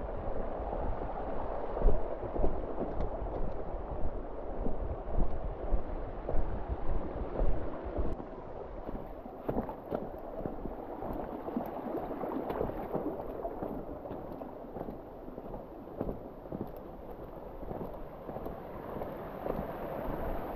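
Low-flow canyon creek water running over rock, a steady rushing. There are irregular low thumps on the microphone in the first eight seconds or so.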